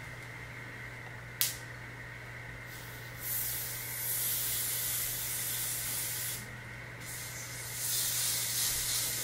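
A short click, then an aerosol can of olive oil Fix-It holding spray hissing in two long sprays of about three seconds each, sprayed along a lace-front wig's hairline to lay and melt the lace down.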